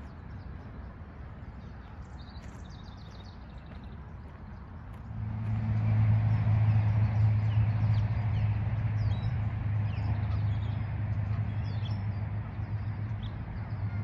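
Small birds chirping, with a short trill early on. About five seconds in, a steady low machine hum comes in and stays, louder than the birds, while the chirps carry on over it.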